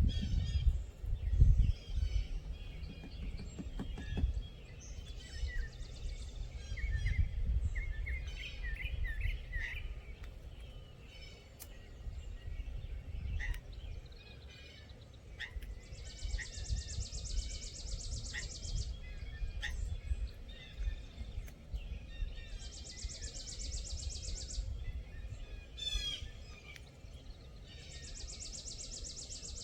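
Wild birds chirping and calling outdoors, over a steady low rumble. In the second half a high, rapid trill repeats three times, each lasting about three seconds.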